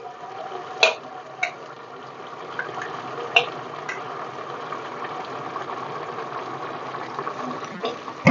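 A metal spoon clicks and scrapes against a steel mixer-grinder jar several times as ground masala paste is scraped into a steel pot. Under it, meat and spices sizzle steadily in the pot on the gas flame.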